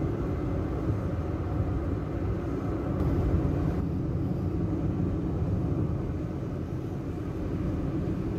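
Steady low rumble of a car on the move, heard from inside the cabin.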